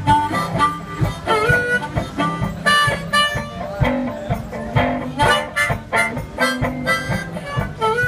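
One-man-band music: harmonica playing a bluesy solo over strummed guitar, with a steady kick-drum beat.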